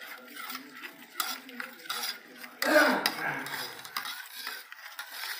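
Metal spoon stirring milk in a stainless steel bowl, scraping and clinking against the sides, with one louder stroke a little past halfway. Lemon juice is being stirred in to curdle the milk into chhena.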